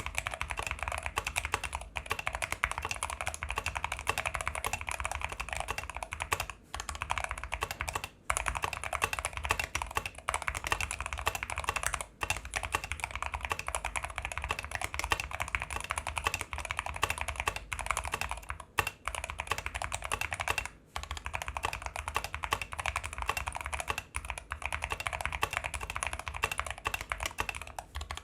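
Fast, continuous typing on a Rama M60 custom mechanical keyboard with lubed Zealios V2 67g tactile switches and EPBT x BIIP PBT keycaps. The key presses come in a dense, rapid stream, broken by a few short pauses.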